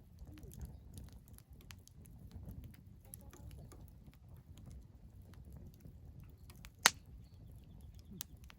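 Firewood burning and crackling in a fire pit: scattered small snaps over a low rumble, with one loud sharp pop about seven seconds in.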